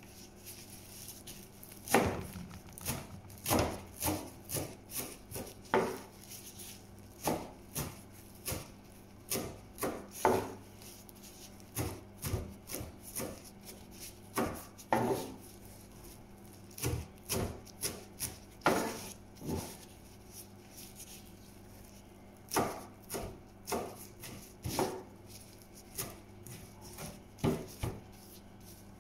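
Chef's knife chopping fresh parsley on a plastic cutting board: sharp, irregular knocks of the blade hitting the board, coming in uneven runs of a few strokes with short pauses between.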